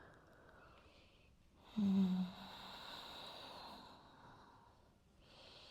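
A person's sigh: a short voiced sound about two seconds in that trails off into a breathy exhale lasting about two seconds, with near silence around it.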